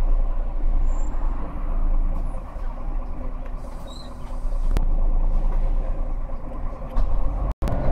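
Inside a moving Irisbus Agora city bus: a steady low engine and road rumble, easing a little midway and then rising again. The sound cuts out for a moment near the end.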